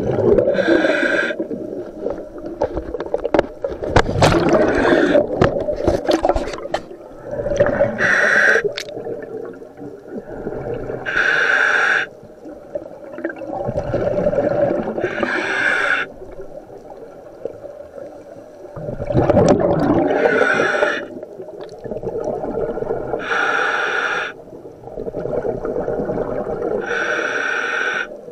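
Scuba diver's own breathing through the regulator of a full face mask underwater: seven hissing inhalations a few seconds apart, each followed by the low rumble of exhaled bubbles.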